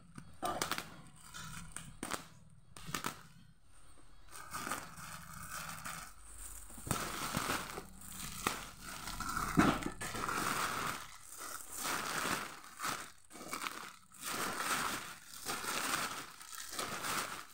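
Black plastic parcel wrapping crinkling and tearing as it is cut open with scissors and pulled apart by hand, in irregular rustles that grow louder and busier about halfway through.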